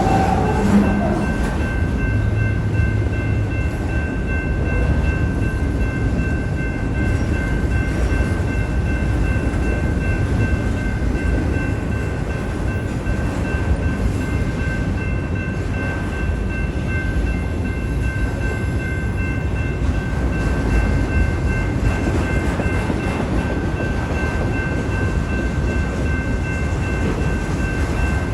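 Railroad cars rolling past a crossing: a steady low rumble of wheels on rails, with a high ringing tone held over it.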